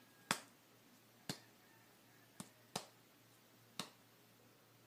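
Five small, sharp clicks, spaced irregularly about a second apart, over near-silent room tone.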